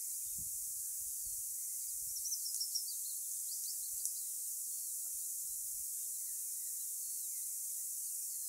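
Outdoor meadow ambience: a steady high hiss with small birds chirping, a few quick chirps bunched about two to three seconds in and one sharp chirp around four seconds.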